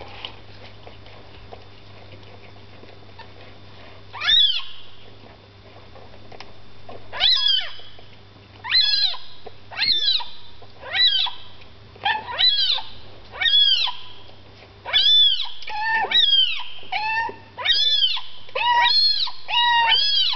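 A cat meowing over and over, more than a dozen meows that each rise and fall in pitch. They begin about four seconds in and come faster toward the end. Before the first meow there is only a faint low hum.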